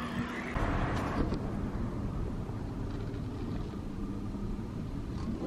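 Steady low rumble of outdoor street noise heard while walking, shifting abruptly about half a second in.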